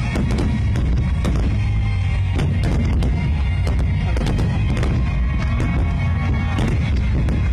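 Starmine fireworks barrage: shells bursting in quick succession, deep booms mixed with many sharp cracks, over loud music.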